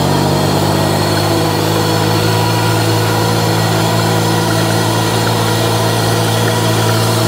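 Gas dirt bike engine running at a steady, low speed as the bike rolls along, its pitch holding even after dropping off just before.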